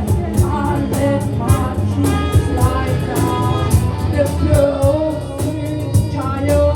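Live psychedelic rock band playing, with sung vocals over guitar and a steady drum beat.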